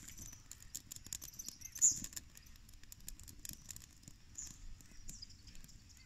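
Newly lit kindling fire of paper and split firewood crackling, with scattered small pops and clicks and one louder pop about two seconds in.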